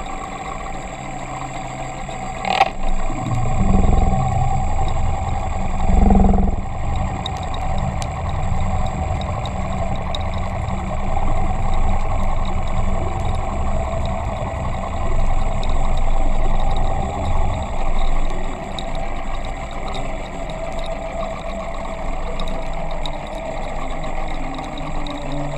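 Steady engine-like hum heard underwater through a camera's waterproof housing, with a low rumble that swells after a sharp knock a couple of seconds in. Heavier thumps follow around four and six seconds, and the rumble fades out about two-thirds of the way through.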